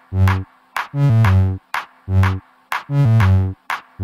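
Electronic background music with a steady drum-machine beat and a synthesizer bass line, the pattern repeating about every two seconds.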